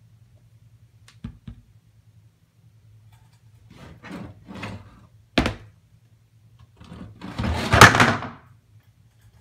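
A plastic feeder cup handled at the enclosure while a cricket is tipped out: two light clicks, then rustling, a sharp knock about five seconds in, and a louder, longer clattering rustle near the end.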